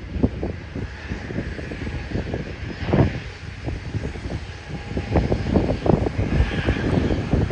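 Jet engines of a widebody airliner at takeoff power on departure, with uneven low buffeting from wind on the microphone.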